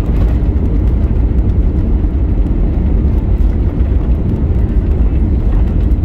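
Steady low rumble inside the cabin of an Airbus A321neo rolling down the runway just after touchdown: engine noise and the landing gear on the runway, with a few faint clicks on top.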